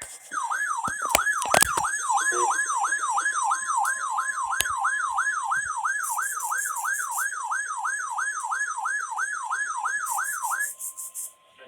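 Electronic alert tone: a siren-like warble sweeping up and down about two and a half times a second over a steady tone near 1 kHz. The warble stops near the end, leaving the steady tone alone for about a second. A few sharp clicks come in the first two seconds.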